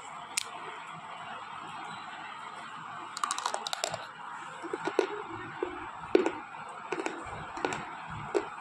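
Slate pencil being bitten and chewed: a quick run of crisp cracks about three seconds in, then single sharp crunches roughly once a second as the pieces are ground between the teeth. A fan runs steadily underneath.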